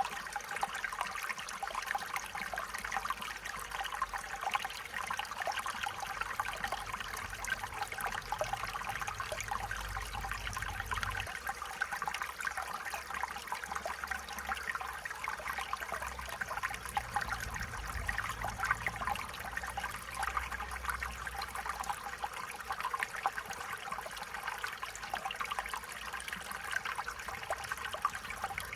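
A small stream flowing and trickling over stones, a steady babbling of water.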